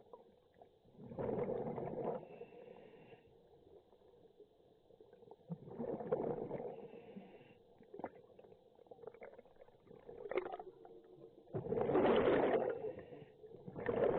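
Scuba diver breathing through a regulator underwater: the gurgling rush of exhaled bubbles comes about every four to five seconds, with a faint hiss between breaths.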